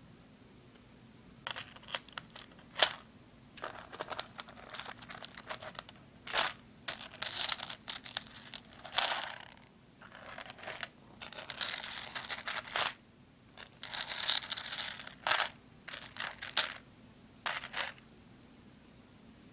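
Seashells handled close to the microphone: sharp clicks and taps as shells knock together, between stretches of scratchy rubbing and scraping. It starts about a second and a half in and stops shortly before the end.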